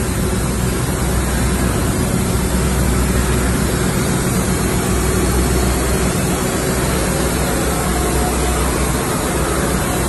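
An engine running steadily: a constant low hum under an even hiss, with no change in speed.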